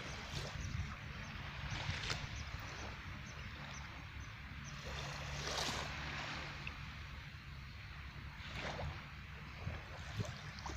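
Sea surf washing in, with swells of spray noise every few seconds, over wind rumbling on the microphone.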